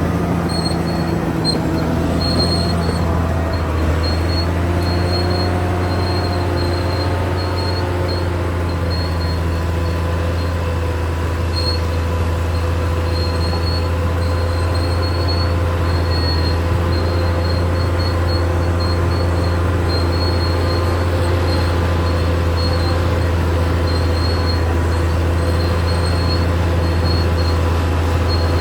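Caterpillar D6R XL bulldozer's diesel engine running with a steady low drone; its pitch shifts up and down in the first several seconds, then holds even. A faint high squeal comes and goes throughout.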